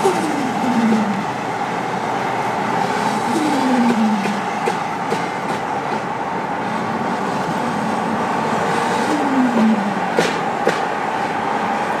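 Steady drone of road noise, over which an 840 bhp tuned Nissan R34 GT-R's twin-turbo straight-six revs and falls away three times, its pitch sliding down each time. Two sharp cracks come near the end.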